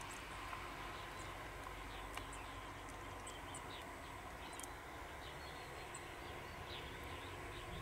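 Outdoor ambience: small birds chirping in short, scattered calls over a steady background hiss.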